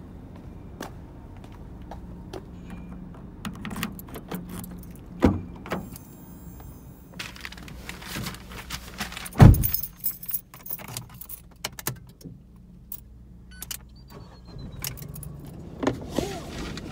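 Keys jangling and rattling while getting into a Fiat 500C, with scattered clicks and knocks. About halfway through comes one heavy thump, the car door shutting, after which the background is quieter.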